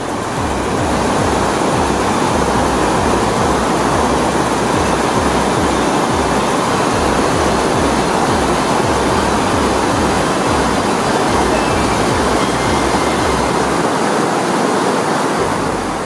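Large waterfall rushing, a loud, steady wash of water noise. A low, regular beat of background music runs underneath and stops near the end.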